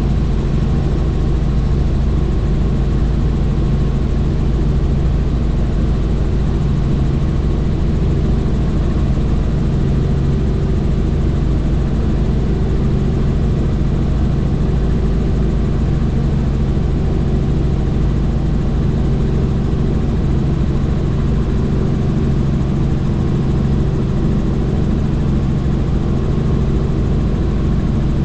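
Helicopter in flight, its rotor and engine droning steadily as a low, even hum with no change in pitch.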